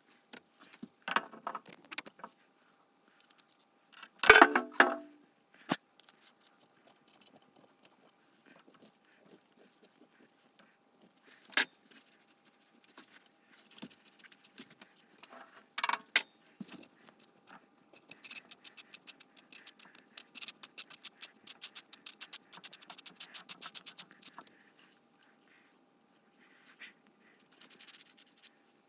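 Metal parts and tools being handled: scattered clinks, knocks and scrapes, with a quick run of rapid clicking for several seconds past the middle.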